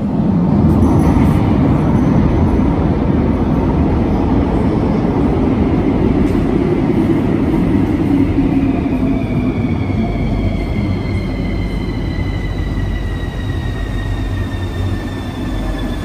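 CAF metro train pulling into an underground station: a loud, steady rumble of wheels on rails, joined about halfway through by high whines that slowly fall in pitch as the train brakes to a stop.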